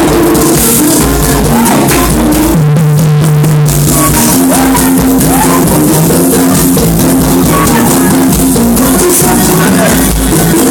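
Loud music with a drum kit beat and guitar, played over a sound system.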